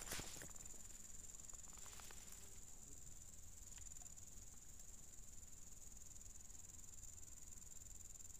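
Swamp insects calling in one steady, faint, high-pitched note, with a few faint clicks about two seconds in.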